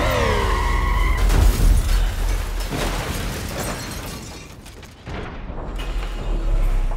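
A car exploding: a deep boom with shattering, crackling debris, over a dramatic film score. The score swells again near the end and cuts off abruptly.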